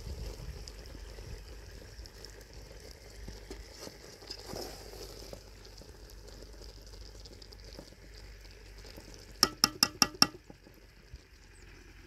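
A metal ladle stirring thick, chunky apple jam in an aluminium pot. Near the end come five quick metallic taps, about five a second, each ringing briefly: the ladle rapped against the pot.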